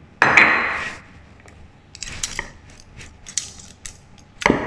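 Metal spoon and whisk scraping and clicking against a glass mixing bowl as soft butter is stirred into a wet dough mixture. There is a louder scrape about a quarter second in and another near the end, with lighter clicks between.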